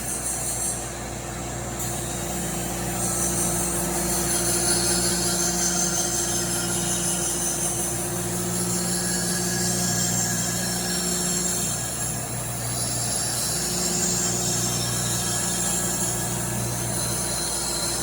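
Bedknife grinder running: a steady motor hum under the high hiss of the grinding wheel working along a reel mower's bedknife. The hiss eases briefly about a second in and again near the middle.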